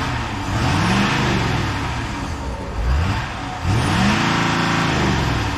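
Ford F450's 6.7-litre Power Stroke V8 turbo-diesel revved three times: a long rev that climbs and falls back, a quick blip, then another long rev.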